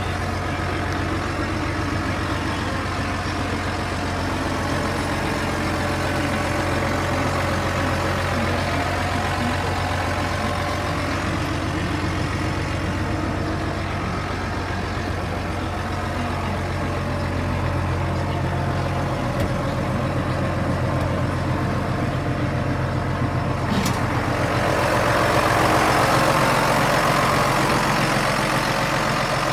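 Large tractor's engine idling steadily, heard from inside the closed cab. Near the end a click as the cab door opens, and the engine turns louder and clearer.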